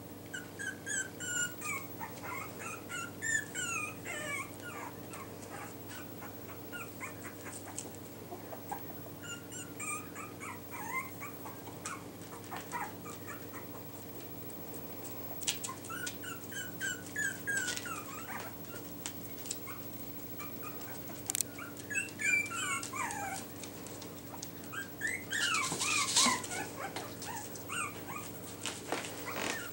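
Yorkshire terrier puppies whimpering and yipping in clusters of short, high-pitched calls that fall in pitch, loudest near the end. A steady faint hum runs underneath.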